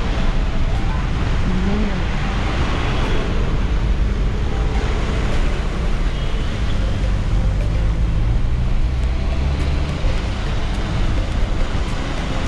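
Steady road noise of a taxi driving through city traffic, with engine and tyres heard from inside the closed cab.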